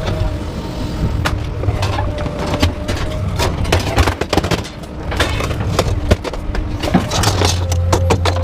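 Scrap metal clattering and banging in a rapid, irregular run of knocks, over an engine running steadily.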